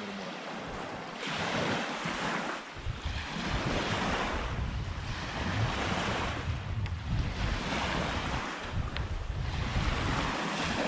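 Small waves breaking and washing up a sandy shore, the hiss swelling and fading every two to three seconds. Wind rumbles on the microphone through the middle.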